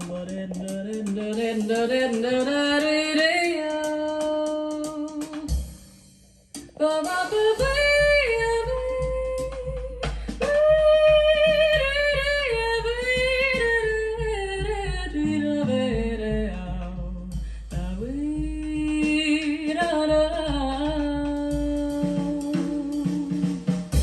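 Recorded vocal music played back through KLH Model 3 hi-fi loudspeakers: long, gliding sung notes without words, a brief drop-out about six seconds in, then a steady bass beat joins the singing.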